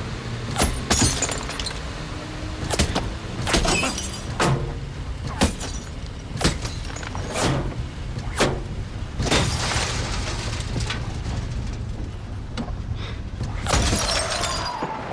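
A string of gunshots striking a pickup truck, bullets punching through the windshield and shattering glass: about a dozen sharp cracks, roughly one a second. The truck's engine hums low and steady underneath.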